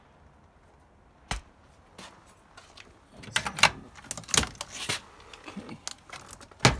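A sharp knock, then a run of irregular clicks, rattles and knocks of hard objects being handled and moved, and another sharp knock near the end.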